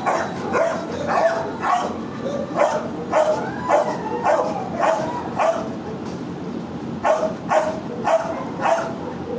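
A dog barking in shelter kennels: a run of about ten short barks, roughly two a second, then a pause of about a second and a half, then four more.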